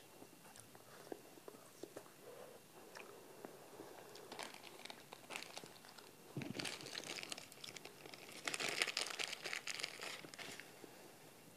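Soft mouth clicks of eating an ice lolly, then a plastic ice-cream wrapper crinkling and rustling as it is handled and torn open. The crinkling comes in from about halfway and is loudest near the end.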